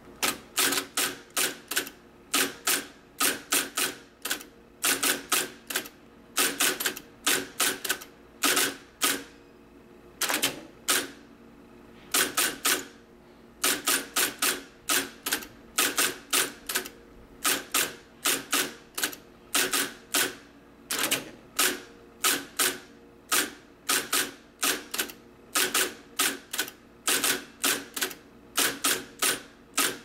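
IBM Selectric II electric typewriter typing: its typeball element strikes the paper in quick runs of sharp clacks broken by short pauses, over the steady hum of its running motor.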